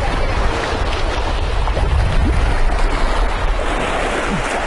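Wind buffeting the microphone: a steady, rumbling rush with no pauses.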